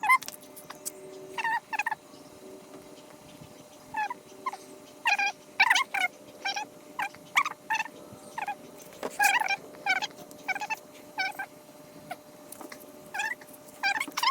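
Repeated short, high squeaks, often in pairs, from a mixing stick being stirred back and forth through two-part repair compound in a cup.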